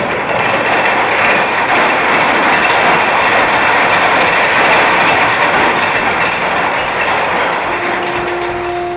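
Ship's anchor chain running out over the windlass and through the hawse pipe as the anchor is let go: a loud, dense, continuous metallic rattle. A steady tone comes in near the end.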